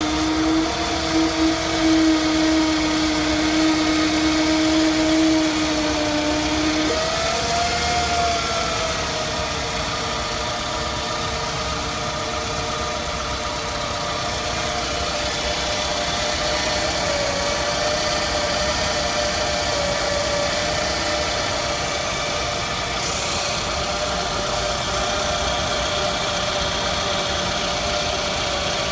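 2006 Scion tC's 2.4-litre four-cylinder engine running, with a whizzing whine over it that the owner calls weird and cannot place. A strong whine stops about seven seconds in; just after, a higher whine briefly rises and falls, then stays steady.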